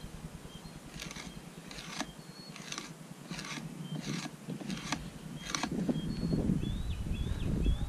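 Knife spine scraping fat and meat off a deer hide on a fleshing post, in a series of about seven strokes, roughly one every 0.7 seconds, that stop near the end. Birds chirp throughout, with a quick run of repeated notes near the end.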